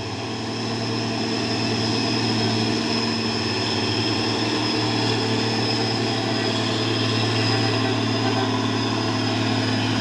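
Mitsubishi Fuso 6x2 truck's diesel engine running steadily under load as the loaded truck drives past.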